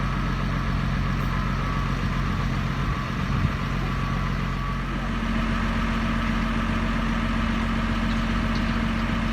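Heavy machinery running steadily with a low engine hum; a higher steady tone joins about five seconds in.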